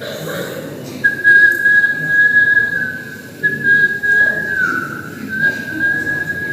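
A person whistling a slow tune into a microphone in long, held high notes, with a short break and a small dip in pitch midway.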